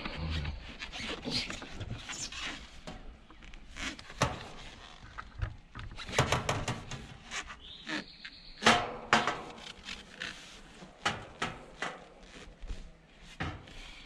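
Copper refrigerant line set being handled and bent into place: scattered irregular clicks, knocks and rubbing, with one louder knock about two thirds of the way through.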